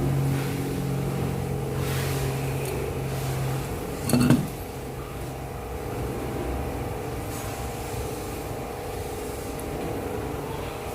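A steady mechanical hum with a few low tones, and a short loud clank about four seconds in.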